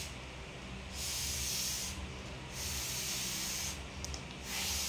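A woman blowing on a piece of hot fried food to cool it: three long breaths, each about a second, with short pauses between.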